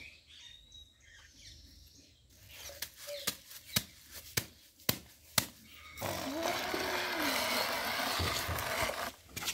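Several sharp clicks of hard mud balls knocking together in a child's hands, then about three seconds of steady scraping rustle as a small plastic toy dump truck is pushed over dirt.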